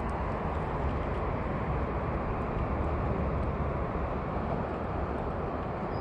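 Steady low rumble of road traffic on the bridge, an even noise with no distinct events.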